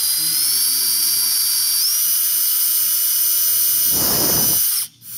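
Handheld power drill running at speed, boring holes through a wooden strip clamped in a vise. Its whine steps up in pitch about two seconds in, turns coarser briefly around four seconds, then cuts off and starts again near the end.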